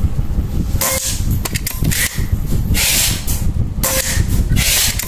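Four suppressed shots from a Predator OD38 air rifle about a second apart, each a short hissing crack. Some are followed by a brief metallic ring as steel silhouette targets are hit and knocked over.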